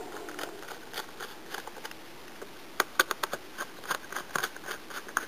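Small Phillips screwdriver driving screws into a laptop's plastic bottom cover: irregular small clicks and scrapes, bunched into quick runs of ticks in the second half.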